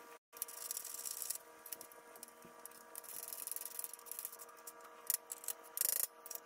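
Hand socket ratchet clicking as a bolt is tightened to fasten the handle stem of a steel motorcycle lift. Runs of fast ratcheting alternate with pauses, and a few separate sharp clicks come in the last second or two. A faint steady hum sits underneath.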